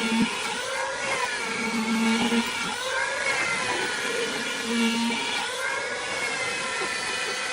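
Electric woodworking power tool running with a whining motor, its pitch sagging and recovering several times as it is worked into the wood.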